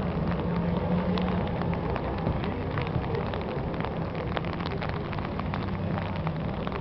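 Steady low drone of racing boat engines, under heavy rain with many small sharp ticks of drops striking close by.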